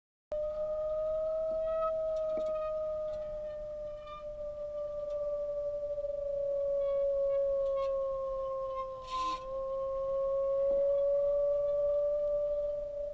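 A sustained pure drone tone with one higher overtone, its pitch sagging slowly and rising again; it starts suddenly after a brief moment of silence, and a short hiss passes over it about nine seconds in.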